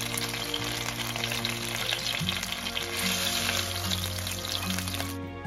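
Lamb chops sizzling in hot oil in a frying pan, a steady hiss that cuts off suddenly just before the end. Soft background music plays underneath.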